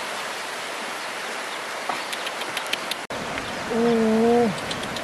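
Steady rush of flowing river water, with a few faint clicks from rope and bamboo being handled. About four seconds in comes a short, steady-pitched vocal sound, the loudest moment.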